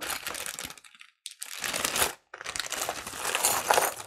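Plastic bag of jewelry crinkling as it is handled, with small sharp clicks from the pieces inside. It comes in irregular stretches with two brief pauses.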